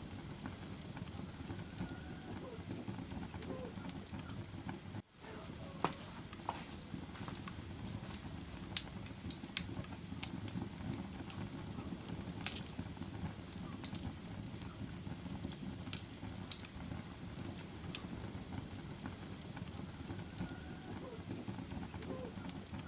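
Fire crackling: a steady low rumble with scattered sharp pops and snaps, a few of them louder, and a brief drop-out about five seconds in.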